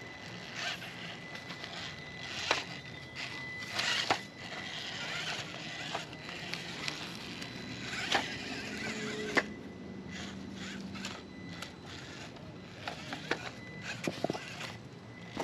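Traxxas TRX4M micro RC crawler driving over rough ground: tyres crunching and scraping over dirt and gravel with irregular clicks and knocks, over a thin steady high whine from its drivetrain fitted with steel transmission gears.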